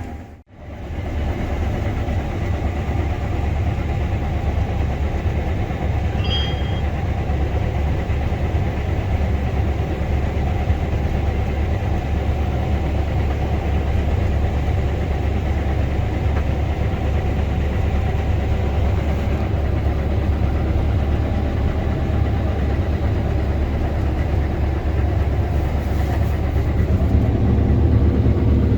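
Case IH 7140 Axial-Flow combine running steadily while harvesting, a constant low machine drone. There is a brief dropout about half a second in.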